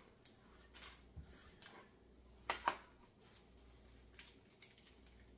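Knife on a cutting board while peppers are cut and seeded: scattered light taps and knocks, with two louder clinks close together about two and a half seconds in.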